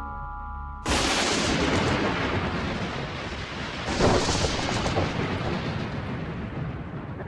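Soft soundtrack music is cut off about a second in by heavy rain falling. A single thunderclap cracks about four seconds in, over the rain.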